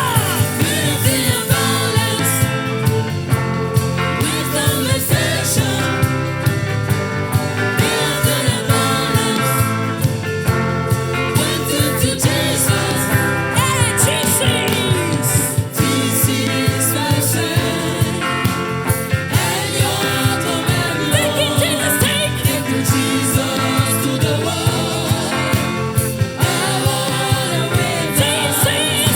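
Gospel song with a steady beat and a voice singing or ad-libbing over the band.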